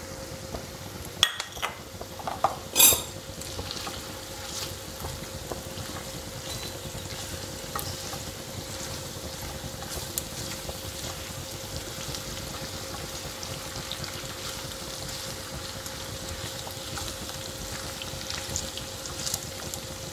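Chilli pork with red onion and spring onion sizzling in a wok while a spatula stirs it, a steady frying hiss with small scrapes and clicks. There are two sharp knocks of the spatula on the pan in the first three seconds.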